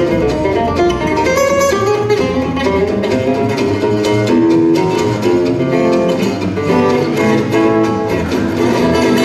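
Gypsy jazz played live: quick lead lines on a Selmer-style oval-hole acoustic guitar over plucked double bass.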